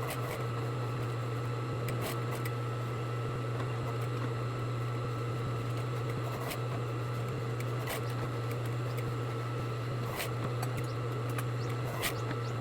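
A sewing machine's motor humming steadily, with a few sharp clicks and light handling sounds scattered through, about every two seconds at most, and no run of stitching.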